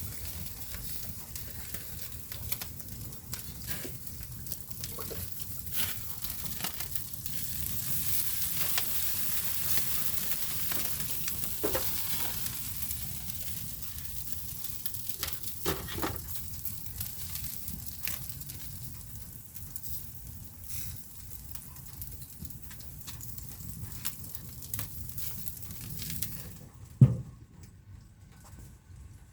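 Burgers sizzling on a grill, a steady crackling hiss with small pops. Near the end the sizzling cuts off and a single loud thump follows.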